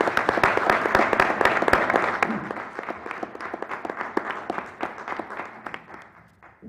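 Audience applauding. The clapping is loudest in the first two seconds and dies away over the rest, ending just before the close.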